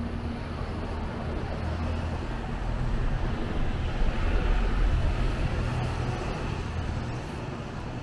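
City street traffic: a low engine rumble from passing vehicles over a steady wash of road noise, swelling to its loudest about four to five seconds in.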